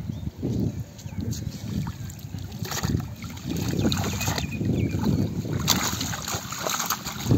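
Wind buffeting the microphone as an irregular, gusting rumble, with a few brief sharp noises mixed in.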